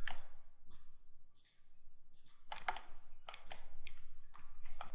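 Scattered, irregular clicks from a computer mouse and keyboard as the 3D modelling software is worked.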